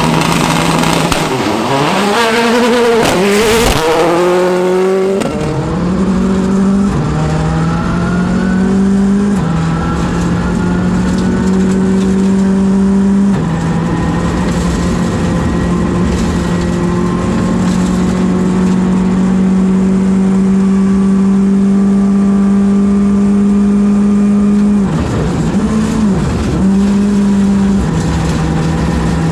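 Mitsubishi Mirage AP4 rally car engine under hard driving. The revs flare quickly up and down at first, then climb and drop back at each gear change. After that comes a long, slowly rising pull, broken briefly by a couple of quick dips and blips near the end.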